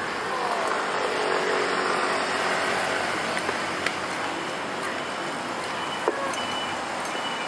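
Road traffic passing on a city street: cars and motor scooters going by in a steady wash, one engine tone falling in pitch as it passes early on. A single sharp click about six seconds in.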